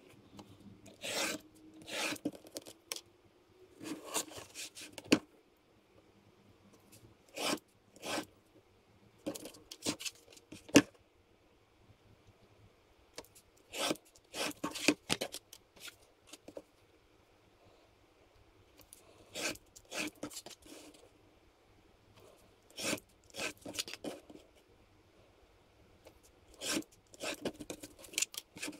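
Craft knife drawn along a steel ruler, cutting paper-faced styrene board into strips: short scraping strokes in quick runs, with quiet pauses between the runs. One sharp click, the loudest sound, comes about eleven seconds in.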